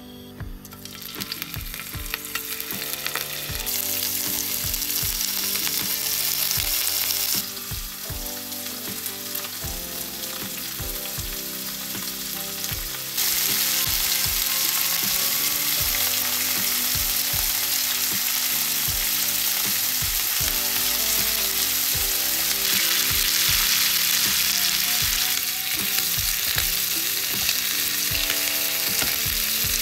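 Shrimp frying in hot olive oil in a frying pan: a steady, dense sizzle that steps up louder about halfway through and stays loud.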